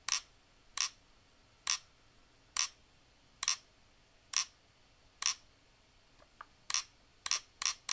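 Dye M3s paintball marker's trigger being pulled over and over, giving sharp clicks about once a second that come quicker near the end. It is a trigger click said to sound weird.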